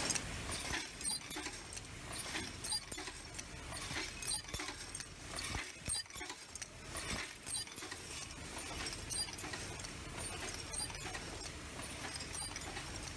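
Automatic ballpoint pen assembly machine running, with sharp mechanical clicks about two a second over a steady clatter of small parts. The clicks stand out more in the first half, then even out into a more continuous rattle.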